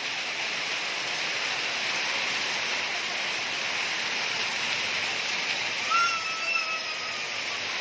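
Heavy rain pouring steadily: a dense, even hiss of rain on roofs and ground, with water streaming off the roof edges. About six seconds in, a short high call slides slowly down over it.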